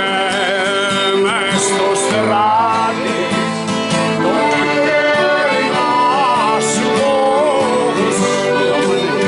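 A man singing and playing an acoustic guitar, with an accordion holding sustained notes beneath the melody.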